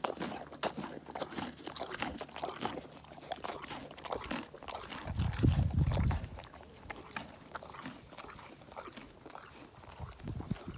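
A pony crunching and chewing carrot pieces close to the microphone: a run of short, crisp crunches. A loud low rumble comes about five seconds in.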